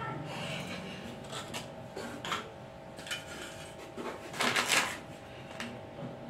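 A table knife scraping the cream off Oreo biscuits and tapping against a steel plate: irregular light scrapes and clicks, with a longer, louder scrape about four and a half seconds in.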